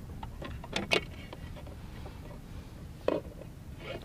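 A few sharp knocks and clatter on a plastic fishing kayak as a freshly landed flathead is handled on deck: two close together about a second in and another near three seconds, over a steady low rumble.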